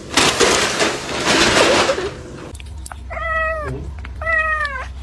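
A loud rough noise for about two seconds, then a domestic cat gives two drawn-out, complaining meows, each under a second long and slightly falling at the end, a little more than a second apart.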